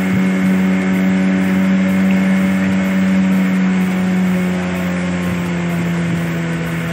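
Motor of a small fiberglass boat running steadily under way, with a low, even drone. Its pitch eases slightly lower from about two-thirds of the way through.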